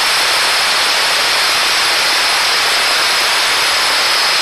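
Impact wrench running in one long, loud, steady hissing stretch that cuts off suddenly at the very end, driving the axle hub nut during a front wheel bearing replacement.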